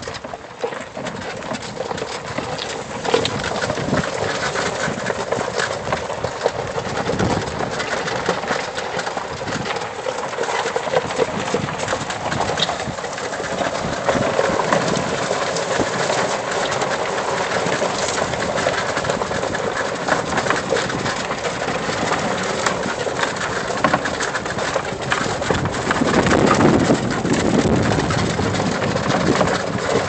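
Lifted E-Z-GO golf cart on 22-inch tires driving along a rough dirt trail: the steady rumble and rattle of the cart, with the tires crunching over leaves and gravel.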